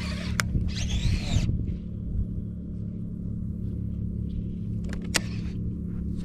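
Steady low motor hum, with a rustle of wind in the first second or so and two sharp clicks, one near the start and one about five seconds in.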